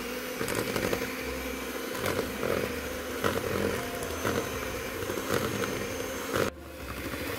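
Electric hand mixer running steadily on low speed, its beaters churning a dry flour mixture as liquid is poured in, with scattered clicks. The sound breaks off sharply for a moment about six and a half seconds in, then runs on.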